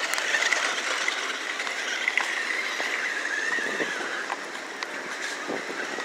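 Toy RC side-by-side, a 12.8-volt 4x4, driving along: its electric motors and plastic gearbox give a steady, slightly wavering high whine over a hiss, with a few light knocks.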